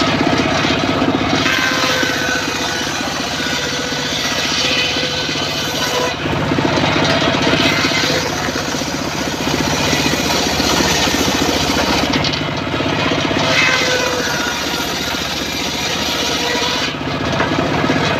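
Homemade circular saw bench ripping teak planks, its motor running steadily under the loud hiss of the blade in the wood. The high part of the cutting noise drops away briefly about every five to six seconds as each cut ends and the next board is fed in.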